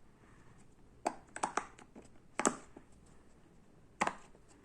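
Silicone pop-it fidget toy bubbles being pressed, giving quiet, sharp pops at uneven intervals: a quick cluster of three about a second in, another about two and a half seconds in, and one near the end.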